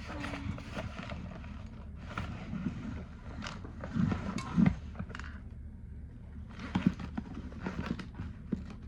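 Rummaging through a survival kit bag: gear being handled, with rustling and irregular knocks and taps, two sharper knocks about halfway through and near seven seconds in.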